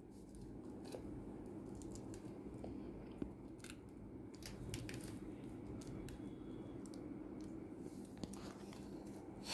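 Faint, scattered clicks and small crunches of an Alexandrine parakeet nibbling and biting with its beak, over a low room hum.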